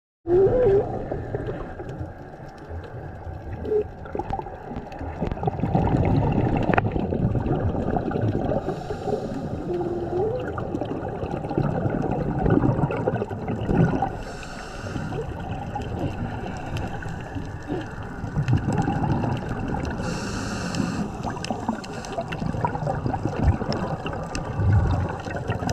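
Underwater sound of scuba diving heard through the camera housing: a diver's regulator breathing, with bubbles gurgling and rumbling in swells and a brief hiss about every six seconds.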